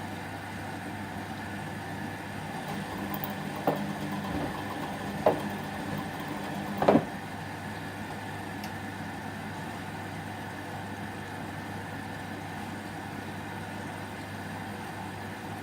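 Whirlpool front-loading washing machine running a 30° delicate wash, its motor humming steadily. Between about three and seven seconds in, the hum swells while the drum turns, with three short knocks; the last is the loudest.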